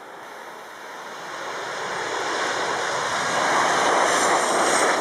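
Jet engines of a Boeing 737 on landing approach, the broad rushing sound growing steadily louder as the plane comes closer, with a high engine whine coming in near the end.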